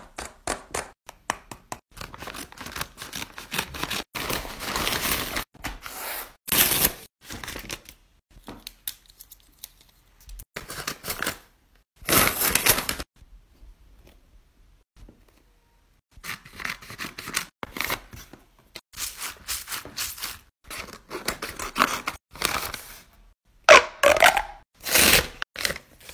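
Hands pressing and squeezing squishy fidget toys: a drawn-on paper squishy, a foam squishy and stress balls. They give crackly crinkling and rustling in short bursts with pauses, and there is a near-silent gap of about three seconds midway.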